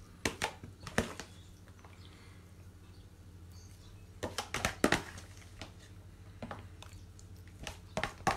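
A utensil knocking and scraping against baking dishes as chicken and onions are spooned into them. The sound comes in short clusters of clicks: a couple about a second in, a busy run around the middle, and more near the end.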